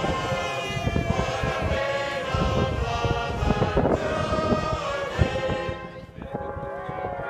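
Crowd of voices singing a song together in chorus, with rumbling on the microphone underneath. The singing grows quieter about six seconds in.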